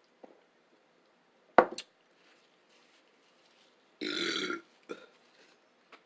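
A person burps once, a short throaty belch about four seconds in. Earlier, about a second and a half in, a sharp knock is the loudest sound, with a lighter tap just after it.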